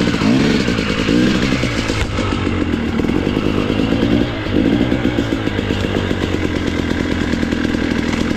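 Enduro motorcycle engine revving hard, its pitch rising and falling again and again as the throttle is worked, with a short drop about four seconds in.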